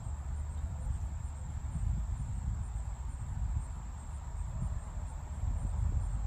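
Insects trilling steadily in a thin high tone, over a loud, uneven low rumble.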